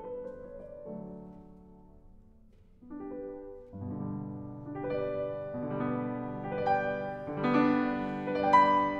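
Background piano music. It fades low about two seconds in, then fresh chords come in and it grows louder toward the end.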